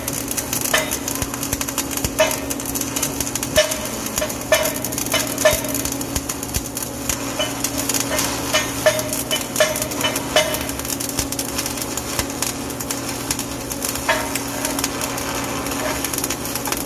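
Stick (arc) welding: a steady welder hum under a crackling, sizzling arc, with irregular sharp metallic taps, most of them in the first ten seconds.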